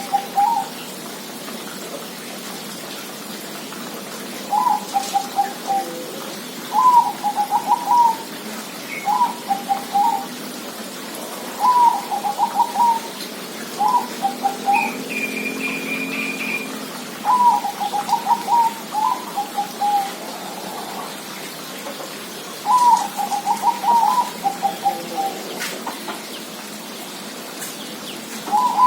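Zebra dove (perkutut) cooing: repeated phrases of quick, stuttering coo notes, each about a second long, coming every few seconds. Another bird gives a brief higher trill about halfway through.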